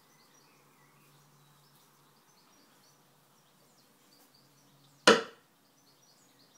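A single sharp knock about five seconds in, over faint bird chirps in the background.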